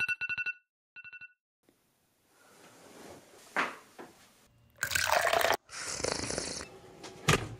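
Electronic alarm beeping in two quick bursts of short beeps, then rustling, then liquid pouring in two loud stretches, with a short sharp sound near the end.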